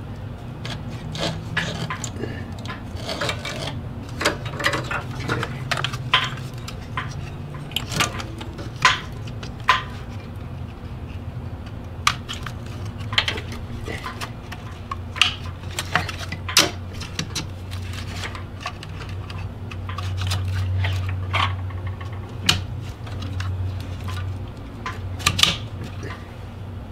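Hands working a car's wiring harness: irregular clicks, taps and rubbing of wires, plastic and small metal parts, over a steady low hum.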